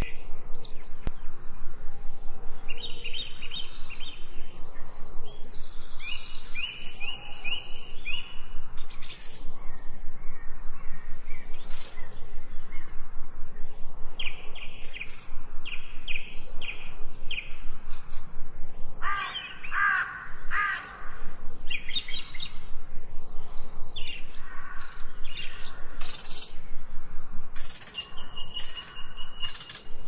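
Several wild birds singing and chirping, overlapping runs of quick, high repeated notes, with a lower warbling phrase standing out about two-thirds of the way through.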